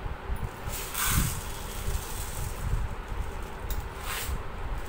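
Dried lentils rustling and rattling as a plastic measuring cup is scooped into them, with a short hiss of grains about a second in and again near the end. A steady low rumble runs underneath.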